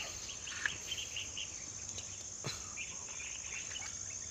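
Steady high-pitched drone of insects, with many short chirps over it and two brief clicks, one about half a second in and one about two and a half seconds in.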